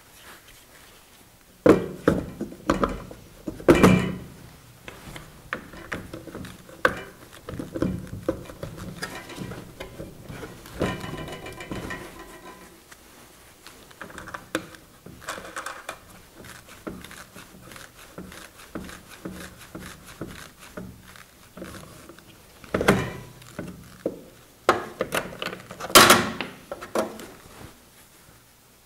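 Plastic and metal parts of a welder's wire-feed compartment being handled: a spool of flux-core wire and its holder fitted on the spindle, then the feed roll worked on, giving a run of clicks, knocks and rattles. The loudest knocks come about two and four seconds in and again near the end.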